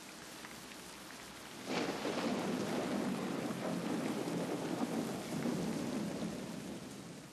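Steady rain with a deep thunder rumble that breaks in suddenly about two seconds in, then fades out near the end.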